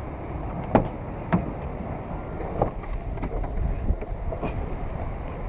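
Steady low rumble with wind on the microphone, broken by about four sharp clicks or knocks in the first three and a half seconds.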